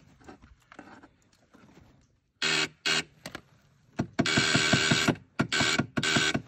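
A snowmobile's electric starter cranking the engine in short bursts: two quick bumps, then longer cranks of about a second each, with an even chugging of about seven beats a second under the starter's whine. The engine does not catch while the starter fault, traced to a chafed starter power wire, is being worked on.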